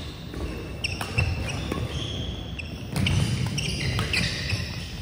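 Badminton doubles rally: rackets striking the shuttlecock in sharp cracks, mixed with short high sneaker squeaks on the sports-hall floor, in a large, reverberant gym.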